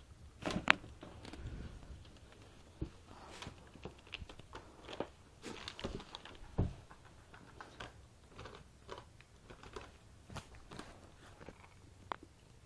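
Thin plastic wrap crinkling and crackling in irregular bursts as kittens paw at it, with scattered taps throughout.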